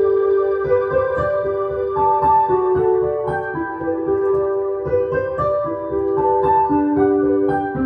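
Instrumental backing track led by electric piano or keyboard, with held melody notes over a steady beat.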